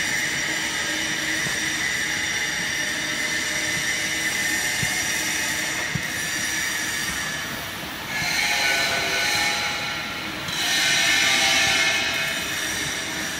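Wood-shavings conveyor and baling machinery running with a steady mechanical whine and high squealing tones. The squeal grows louder and brighter twice in the second half.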